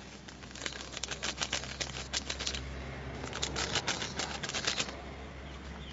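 Seasoning shaken from a plastic packet into a pot of soup at a hard boil: rapid crackling in two bursts of a second or two each, over a steady low hum.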